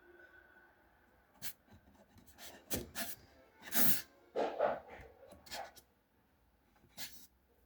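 Irregular short rubbing and scraping strokes with a few light clicks, spread unevenly with quiet gaps between them.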